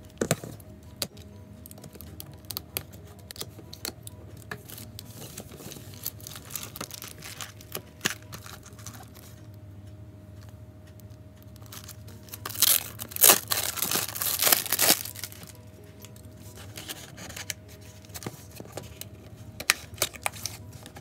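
A magazine and its boxed free gift being unpacked by hand: scattered rustling and clicks of paper, plastic and cardboard, with a loud stretch of packaging being torn open about twelve to fifteen seconds in.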